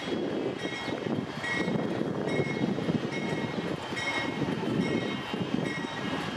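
Passenger train rolling slowly into the station: a steady low rumble from its engine and wheels, with a short high ringing tone repeating a little more often than once a second.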